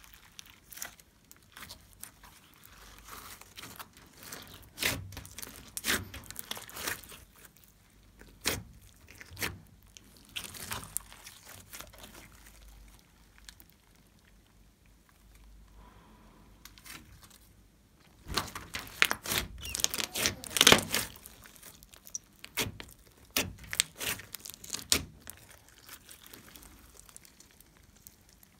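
Clear slime with foam beads mixed in, stretched, folded and squeezed by hand: irregular wet crackles and pops of trapped air. A quieter stretch in the middle, then a dense, loud run of pops a bit over two-thirds through.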